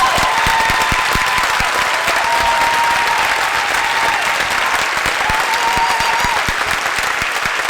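Audience applauding loudly, with a few voices calling out over the clapping, in approval of the school board's vote.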